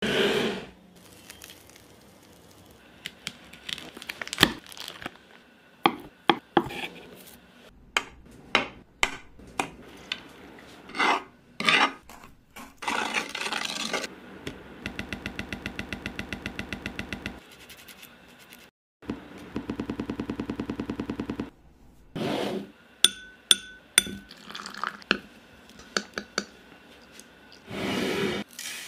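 A spoon clinking, tapping and scraping on a black plate as spices are stirred into a red masala paste: sharp clicks and scrapes, with two spells of fast, even rattling near the middle.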